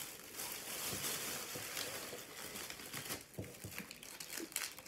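Snack packaging crinkling and rustling as it is handled, in soft, irregular crackles.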